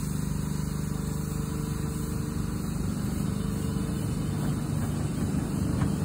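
5-inch gauge 0-4-0 miniature steam locomotive getting under way: a steady hum that turns rougher and slightly louder from about halfway through.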